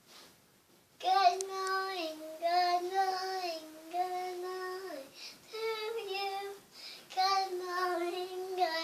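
A young girl singing a tune in long held notes, starting about a second in, with a couple of short breaks.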